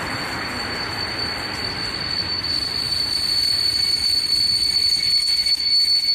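Passenger train braking as it pulls into a station: a steady high-pitched squeal from the wheels and brakes over the rumble of the running gear. The squeal grows louder through the second half.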